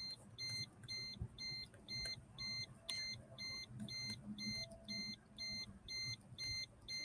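An electronic warning beeper sounding steadily, a short high-pitched beep about twice a second, over a faint low background rumble.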